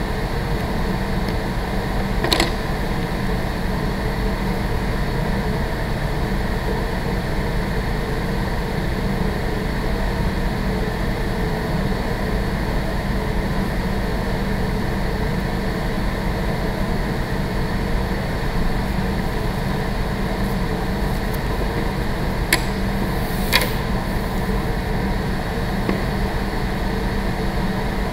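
Building ventilation running: a steady rushing noise with a low hum. A few brief clicks come about two seconds in and twice near the end.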